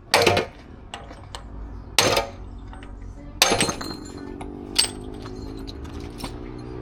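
Hard metal-on-metal strikes, four of them a second or two apart, the third ringing on, as a stuck rear wheel hub is driven out of its bearing. A steady low hum starts about three and a half seconds in.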